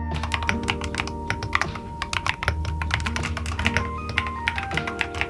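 Typing on a mechanical keyboard: quick, irregular key clacks, several a second, over background music.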